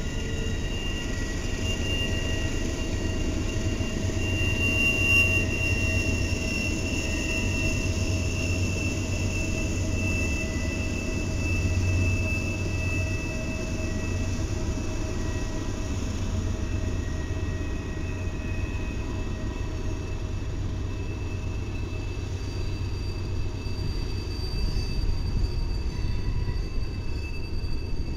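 An Amtrak passenger train and a Norfolk Southern freight train passing each other on a sharp curve: a steady rumble of diesel locomotives and rolling wheels, with thin, steady high-pitched wheel squeal from the curve.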